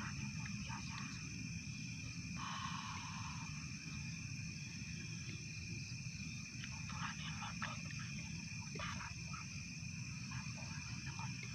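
Steady, even chirring of night insects, with a low rumbling noise underneath, a short rustle about two and a half seconds in and a few faint clicks later.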